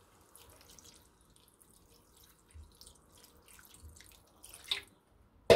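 Water poured in a thin stream from a jug into a pan of gizzards in cream, with a soft trickling and splashing. A brief louder sound comes right at the end.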